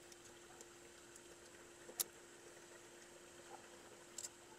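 Near silence under a faint steady hum, broken about two seconds in by a single short snip as wire cutters cut through the excess tail of a plastic zip tie. A couple of faint clicks of the cutters follow near the end.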